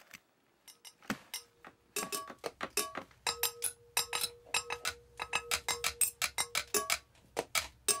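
A spoon clinking quickly and repeatedly against a glass cup as it stirs, each strike ringing briefly, starting about a second in.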